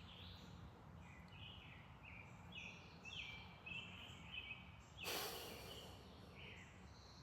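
Faint outdoor ambience of small birds singing, a series of short falling chirps repeating throughout, over a low steady rumble. About five seconds in, a brief whoosh of noise, the loudest thing here, rises and fades over about half a second.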